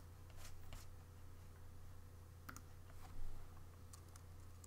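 A few scattered computer keyboard keystrokes and mouse clicks, faint, over a steady low electrical hum.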